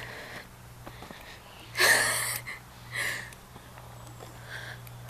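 A person sniffing close to the microphone: a loud sniff about two seconds in and a shorter one a second later, with fainter breaths after, over a faint steady low hum.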